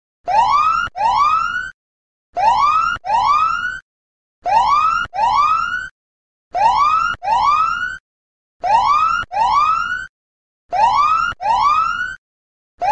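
Siren alarm sounding as a countdown timer runs out: pairs of short rising whoops, repeating about every two seconds.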